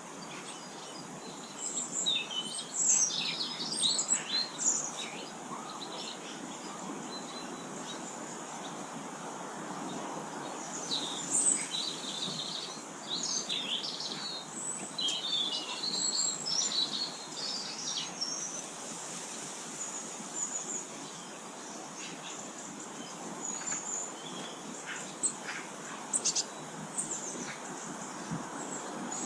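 Small garden songbirds chirping and twittering in quick, high calls. The calls come in busy clusters over a steady background hiss of outdoor noise.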